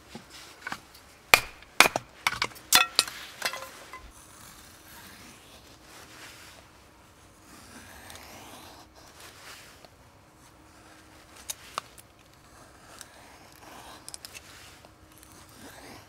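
Firewood being split by striking it: a quick run of sharp, ringing knocks between about one and three and a half seconds in. Then comes quieter rubbing and scraping as the wood is handled, with two more knocks near twelve seconds.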